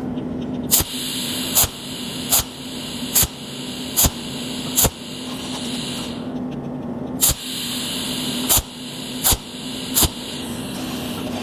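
A cold welding machine firing pulsed spot welds on stainless steel: a sharp crack with each pulse, about one every 0.8 s, over a steady hiss and a low machine hum. The pulses and the hiss stop for about two seconds midway, then the pulses resume at a slightly uneven pace.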